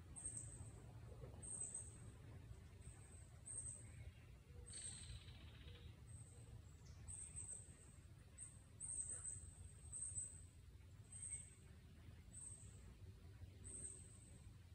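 Faint, short, high-pitched chirps repeating about once or twice a second, over a low steady rumble. A brief hiss comes about five seconds in.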